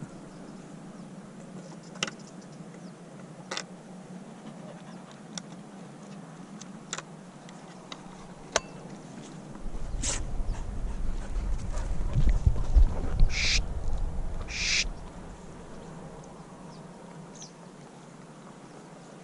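Open-field ambience with scattered faint ticks. Low wind rumble buffets the microphone for a few seconds in the middle, and two short, high-pitched sounds come about a second apart.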